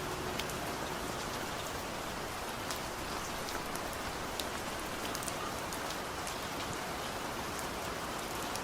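Steady rain falling on a surface, an even hiss with scattered small drop ticks, and the fading end of a held note right at the start.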